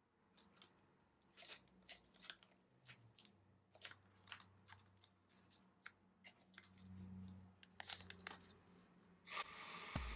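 Quiet handling sounds: scattered light clicks and taps of small objects being moved, with a faint low hum for a second or two past the middle.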